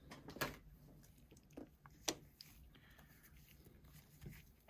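A few faint, sharp clicks and taps from small parts and tools being handled on a work surface during a phone back-glass replacement, the clearest about half a second and two seconds in.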